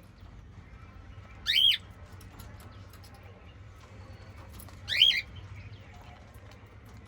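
A cockatiel gives two loud squawking calls about three and a half seconds apart. Each call is short and rises then falls in pitch.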